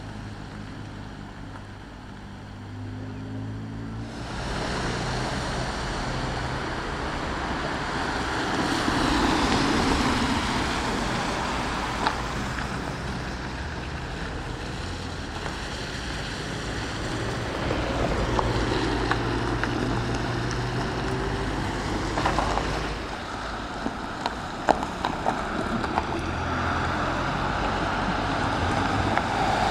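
Heavy emergency vehicles driving past: a steady low engine hum with a rushing tyre and road noise that swells about four seconds in, and a few short knocks near the end.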